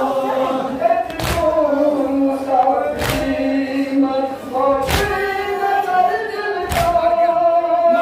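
Large crowd of men chanting a Kashmiri noha (Muharram mourning lament) in unison, with a loud collective chest-beat (matam) falling about every two seconds, four times.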